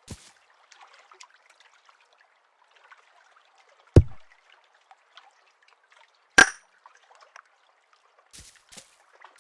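Two loud, sudden knocks about two and a half seconds apart: the first a deep thud, the second sharper and brighter. Faint scattered clicks and crackles run between them.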